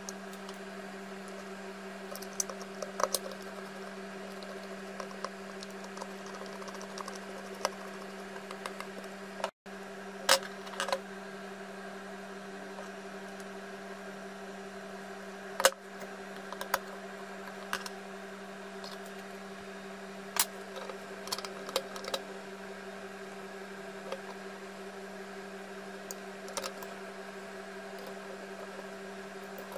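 Scattered sharp clicks and knocks of plastic and metal parts being handled and fitted together while reassembling a Makita 1902 electric planer, over a steady low hum.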